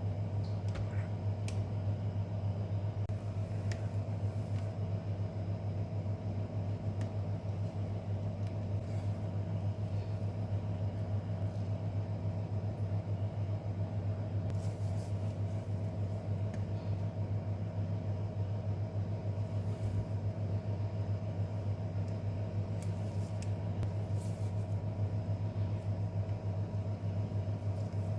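A steady low hum runs throughout, with a few faint clicks and light taps on top.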